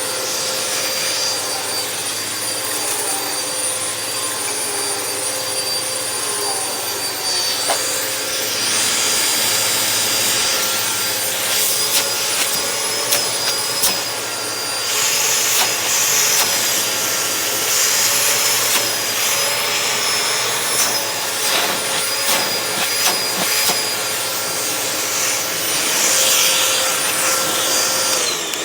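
Hoover WindTunnel Max Capacity upright vacuum running with a steady high-pitched motor whine over a rush of air, with scattered clicks. Near the end the whine briefly dips in pitch and recovers. The motor sounds pretty good, like a Hoover Elite Rewind motor.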